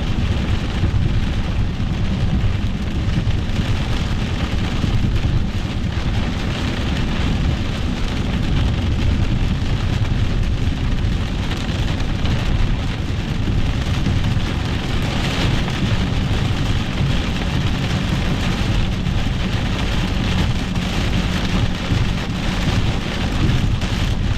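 Heavy rain falling on a moving car's roof and windshield, heard from inside the cabin, over steady low road and tyre noise on a wet road.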